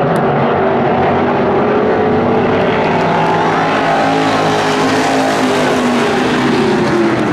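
A pack of IMCA stock cars racing, several V8 engines running hard together in a loud, steady, layered drone. Near the end one engine note drops in pitch.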